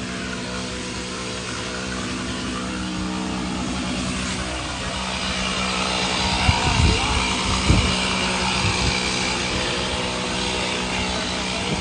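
A motor running steadily with a low, even hum, with two sharp knocks about a second apart past the middle.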